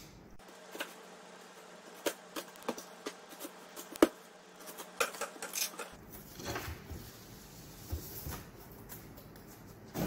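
A knife slitting packing tape on a cardboard shipping box, giving a string of small clicks and scrapes with one sharp tick about four seconds in, then the cardboard flaps being opened and a boxed item lifted out, with softer rustling.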